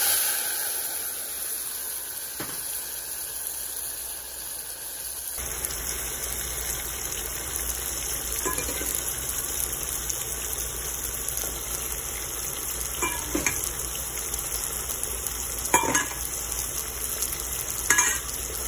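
Potato sticks and taro stolons frying in oil in a saucepan with a poured poppy-seed and mustard batter, giving a steady sizzle. A few light knocks against the pot sound along the way.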